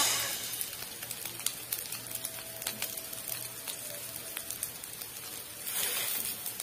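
Embutido slices and milkfish frying in oil in a grill pan: a steady sizzle with scattered small pops and crackles, growing louder near the end as tongs turn the pieces.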